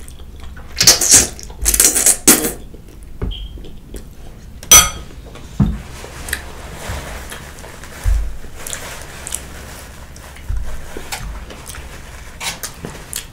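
Eating noises close to the microphone: loud slurps of spicy instant noodles off a fork in the first couple of seconds, then a fork clinking sharply against a glass bowl about five seconds in, followed by softer mouth and handling sounds with light clicks.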